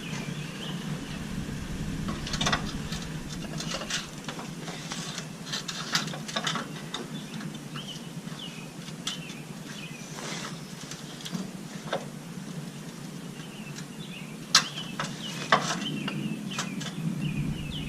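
Irregular clicks and knocks of hands working metal and plastic parts while installing an air suspension compressor and routing its air hose line. The knocks come at uneven intervals, the sharpest about two-thirds of the way through.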